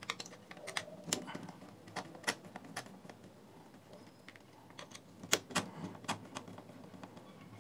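Faint, irregular small clicks and ticks of a screwdriver turning out the small screws that hold the plastic USB end cap of a JBL Charge 3 speaker, with plastic parts tapping. The sharpest ticks come just past five seconds in.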